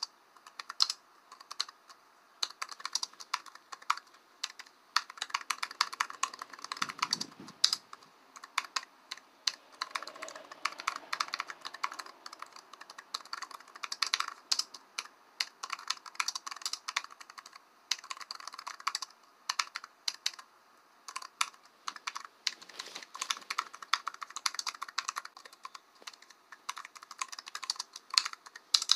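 Typing on a computer keyboard: rapid key clicks in runs, broken now and then by short pauses.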